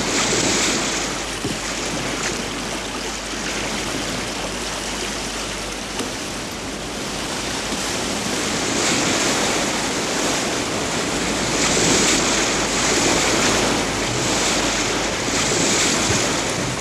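Wind and rough, choppy water rushing against a sailing barge, a steady loud wash that surges louder every few seconds.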